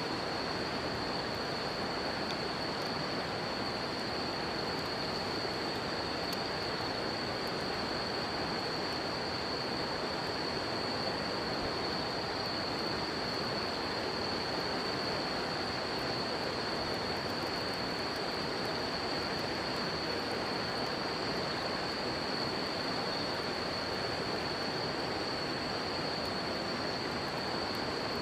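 River water rushing steadily, with insects singing one continuous high-pitched trill over it. Faint crackles from a wood campfire tick now and then.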